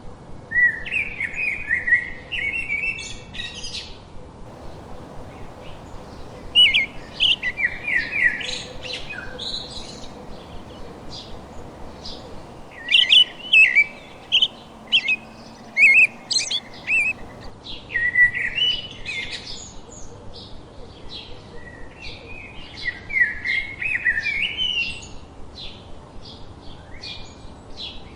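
Songbird singing in about six bursts of rapid chirps and quick down-slurred notes, each burst lasting a few seconds with short pauses between, over faint outdoor background noise.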